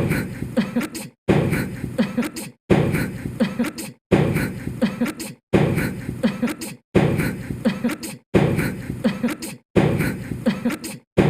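A man's short sneeze followed by laughter and chatter, the same clip looped over and over about every second and a half, with a brief silent cut between repeats.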